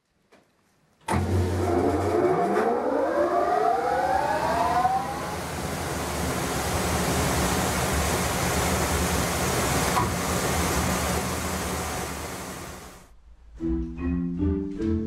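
Theatre organ's electric blower switched on: it starts suddenly about a second in, a whine rising in pitch as the fan spins up over a few seconds, then settles into a steady rush of air. Near the end it gives way to the organ starting to play.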